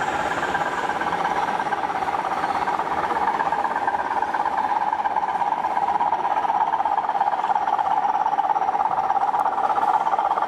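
Pair of model Class 20 diesel locomotives running on the layout, giving a steady whirring running noise.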